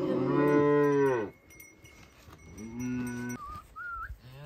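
Cattle mooing. A long moo falls away and ends about a second in, a shorter moo comes about three seconds in, and another begins near the end.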